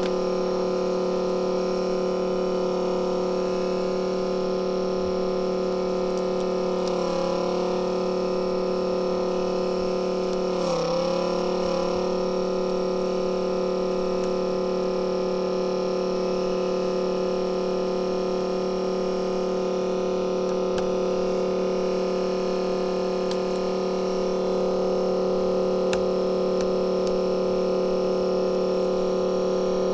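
Steady electrical hum made of several unchanging tones, with a couple of brief wavering disturbances around seven and eleven seconds in.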